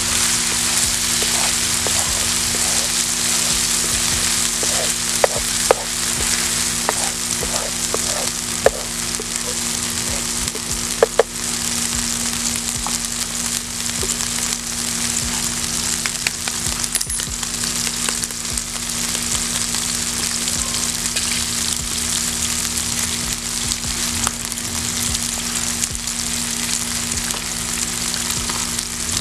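Diced chicken and red peppers sizzling steadily in a non-stick frying pan, with a spatula clicking and scraping against the pan as it stirs, mostly in the first dozen seconds.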